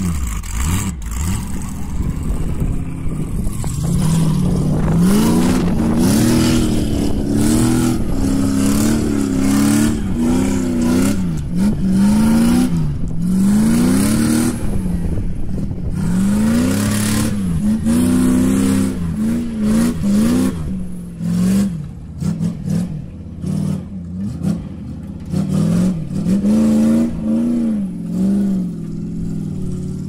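An engine revving up and dropping back over and over, with clattering knocks throughout.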